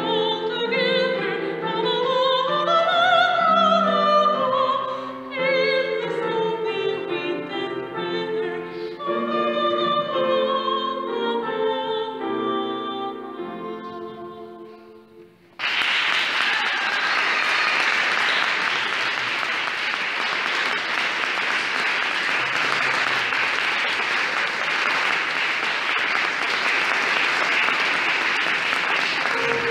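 A woman singing in classical operatic style to digital piano accompaniment, the song fading to its end about halfway through. An audience then breaks into applause all at once and keeps clapping steadily.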